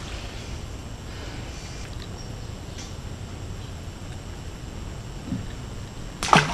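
Steady low outdoor rumble, like wind on the microphone, with no engine running. Near the end comes one brief loud sound whose pitch drops sharply.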